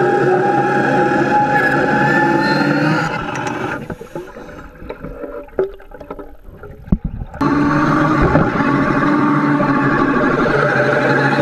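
Pneumatic cold-cutting disc saw running underwater, a steady droning whine from its air motor and disc. It drops out about four seconds in, leaving a few clicks and knocks, and starts running again about three and a half seconds later.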